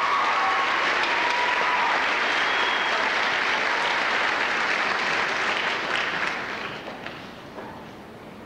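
Audience applauding, dying away about six to seven seconds in.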